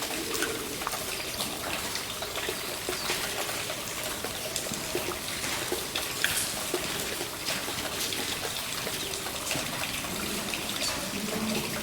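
Rainwater trickling and dripping: a steady wash of running water with many scattered drop taps.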